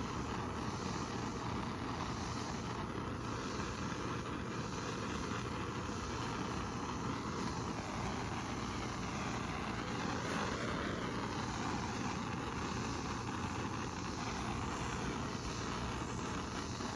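Handheld gas torch flame hissing steadily, heating heat-shrink tubing over a wire splice.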